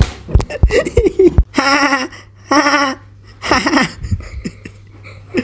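A person's voice in a high, wavering cartoon-style laugh: three drawn-out bursts about a second apart, after a few short low mouth thumps in the first second and a half.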